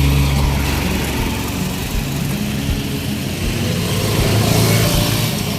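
Road traffic: motor vehicle engines running and passing, with an engine hum that fades in the first half-second and another that swells about four seconds in.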